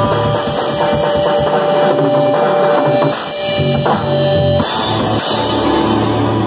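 Rock band playing loudly: drum kit with cymbals, electric guitar and bass guitar.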